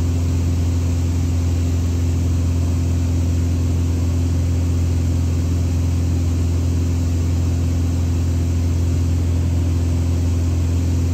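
Single-engine piston airplane in cruise, heard from inside the cabin: a steady, unchanging engine and propeller drone with a strong low hum.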